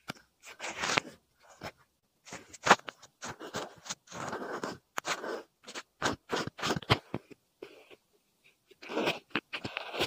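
Close-up ASMR foley: irregular rustling, crunching and scratching strokes, with a few sharp clicks, made to imitate scrubbing hair during a hair wash.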